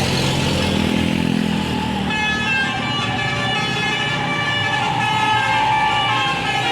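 A bus engine runs for about two seconds, then a basuri-type telolet horn on an Indonesian bus sounds a sustained chord of several high notes together, which carries on past the end.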